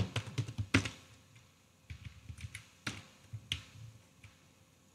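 Computer keyboard keystrokes: scattered taps in short runs with pauses between them.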